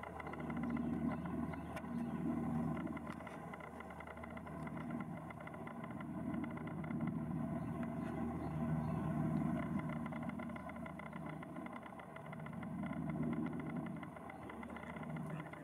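A UH-60 Black Hawk helicopter flying past: the steady drone of its main rotor and twin turboshaft engines, with a low hum that swells and fades in waves every few seconds.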